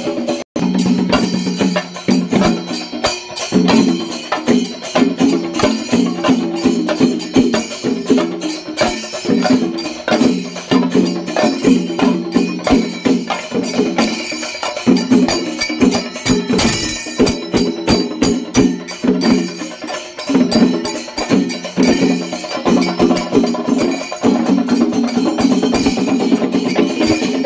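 Festival music: fast, sharp percussion strikes over a pitched melody that plays in short phrases. A brief dropout comes about half a second in.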